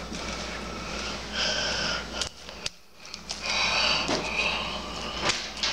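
Hands kneading and stretching slime: squishing sounds with small sharp pops and clicks, with a pause a little past halfway.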